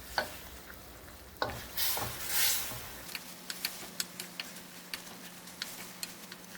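A spoon knocking and scraping in a wok as fried chicken pieces are stirred through a thickening sauce. The sauce sizzles and pops in small crackles, more of them in the second half.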